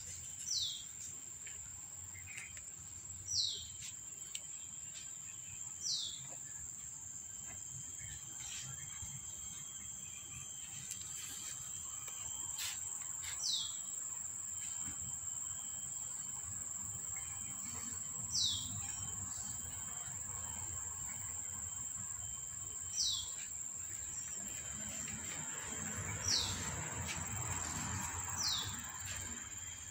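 A bird calling with short, high, downward-sliding chirps, eight in all a few seconds apart, over a steady high-pitched insect drone.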